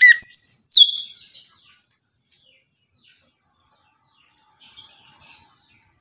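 Caged chestnut-capped thrush (anis kembang) singing a loud burst of clear whistled notes with quick pitch swoops in the first second and a half, then falling quiet. A faint, short scratchy twitter follows about five seconds in.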